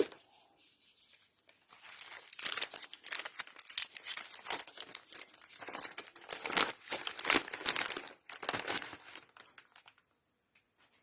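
Piston-ring packaging crinkling as it is handled, an irregular run of rustles from about two seconds in until shortly before the end.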